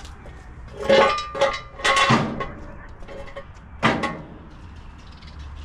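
Metal clanking with a ringing tone: three loud clanks about one, two and four seconds in.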